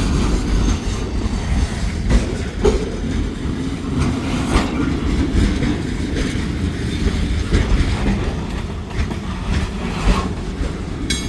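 Escanaba & Lake Superior freight train rolling past, its steel wheels clattering over a rough, bumpy grade crossing: a steady rumble broken by irregular knocks.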